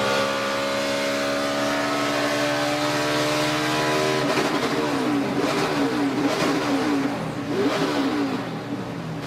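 NASCAR stock car's V8 engine at full throttle, its pitch climbing steadily for about four seconds. It then changes abruptly to an engine sound whose pitch wavers up and down.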